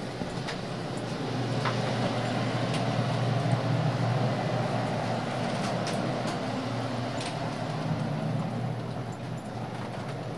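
Steady rumble and hum inside the passenger carriages of the sleeper limited express Naha, with a few sharp clicks. It grows louder through the middle and eases off toward the end.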